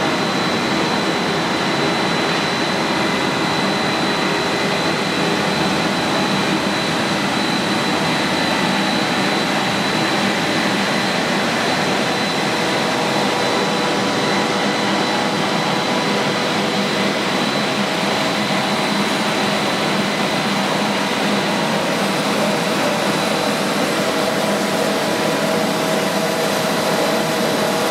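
Plastic compounding line with a twin-screw extruder and strand pelletizer running steadily: an even machine drone and hiss with a constant high whine.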